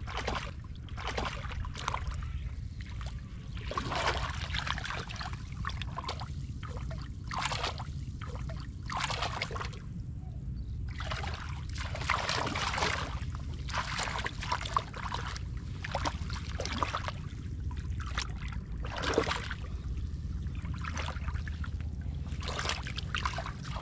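Hands and legs splashing and sloshing in shallow muddy water while groping for fish, in irregular bursts throughout. A steady low rumble runs underneath.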